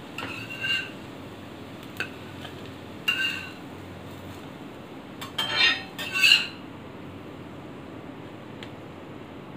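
Steel spatula scraping across an iron tava griddle and clinking as cutlets are slid off and lifted, in several short strokes with a ringing metallic edge; the loudest pair comes a little past halfway.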